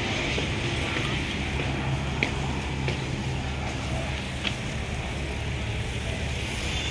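Steady low motor hum over a haze of outdoor noise, with a few short, high chirps about two, three and four and a half seconds in.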